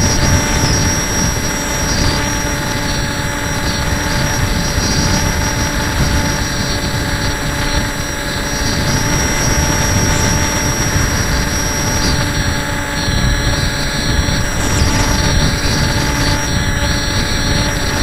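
HobbyKing Breeze FPV model plane's electric motor and propeller running at a steady whine, picked up by the onboard camera, with wind rumble over the microphone.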